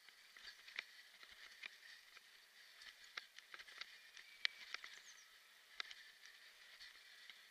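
Faint ride noise from a kick scooter on a bumpy grass-and-mud track: many irregular small clicks and rattles over a steady hiss.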